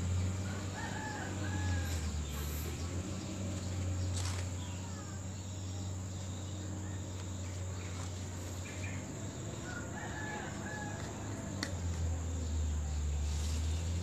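A rooster crowing twice, about nine seconds apart, over a steady low hum.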